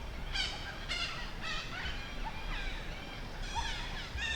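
Forest birds calling: a string of short chirping calls that bend up and down in pitch, about two a second.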